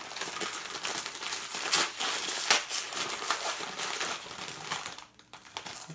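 Plastic packaging crinkling and rustling as a small collectible figure is unwrapped by hand, with a few sharper crackles; it pauses briefly near the end.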